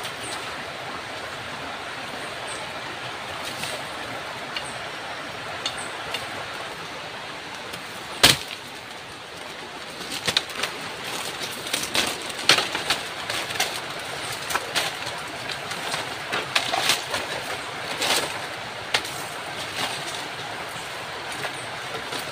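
Steady rush of a nearby river, with plant stems being broken and cut in the undergrowth: one sharp crack about eight seconds in, then a long run of snaps and rustling leaves.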